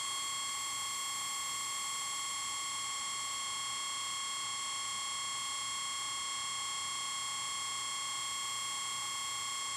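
Homemade 12,000 V Cockcroft-Walton high-voltage generator running, giving a steady high-pitched electronic whine with overtones. No sparks snap across the electrode.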